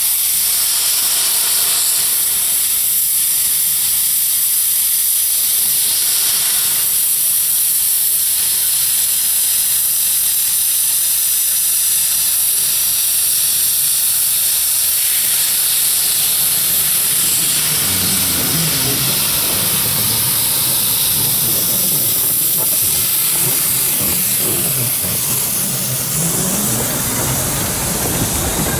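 Loud, steady hiss of steam escaping from the 1924 Wee Georgie Wood narrow-gauge steam locomotive. A lower, uneven rumble joins about two-thirds of the way through as the train moves.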